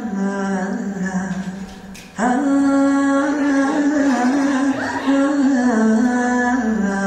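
Performance music: a singing voice holds long, ornamented notes on an open vowel, in two phrases, the second starting about two seconds in after a brief dip.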